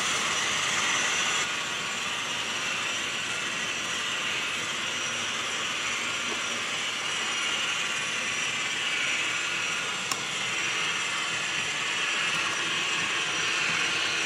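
Model trains running on a layout: a steady mechanical whirring and rattling of small motors and wheels on the track. A single sharp click comes about ten seconds in.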